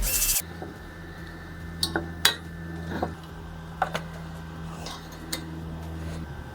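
A power tool cleaning the sheet metal shuts off just after the start. Then come a handful of light metallic clinks and taps as tools and sheet metal are handled, over a steady low hum.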